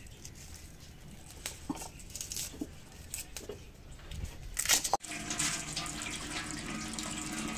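Light clicks and scrapes of garlic being peeled and cut with a knife on a clay plate. About five seconds in, this gives way to tap water running steadily into a steel sink over a clay pot being washed.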